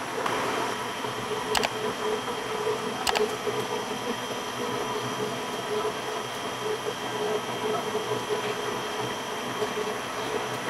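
Steady mechanical drone of bakery machinery with a wavering hum, broken by three sharp clicks in the first three seconds.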